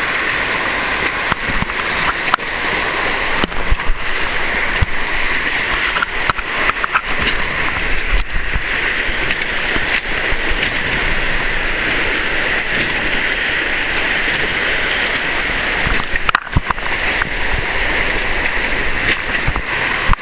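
White-water river rapids rushing steadily, with water splashing against an inflatable raft and frequent short knocks and splashes.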